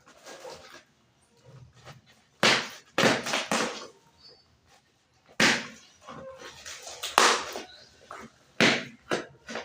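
Packaging being handled while unboxing: irregular bursts of rustling and crinkling with a few knocks, about one burst a second, with short quiet gaps between.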